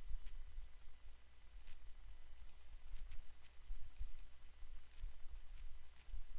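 Many light, irregular clicks from a computer mouse and keyboard, the sound of repeated Alt-click sampling and clicking strokes with Photoshop's clone stamp tool, over a low steady rumble.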